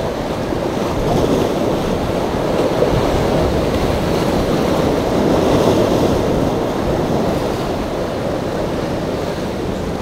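Rough surf and strong wind: a steady rush of breaking waves that swells a little now and then, with wind buffeting the microphone.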